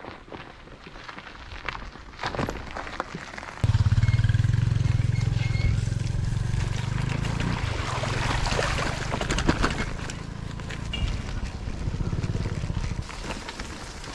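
Wind rumbling on a handlebar-mounted microphone while a loaded touring bicycle is ridden over a rough dirt road, with many small rattles and clicks from the bike and the gravel. The rumble starts suddenly about four seconds in and eases near the end.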